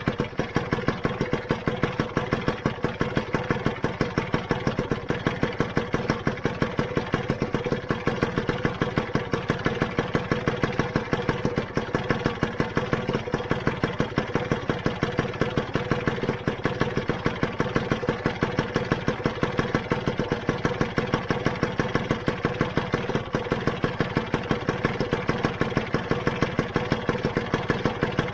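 Freshly rebuilt Lambretta GP two-stroke single-cylinder scooter engine idling steadily with an even, regular pulsing beat.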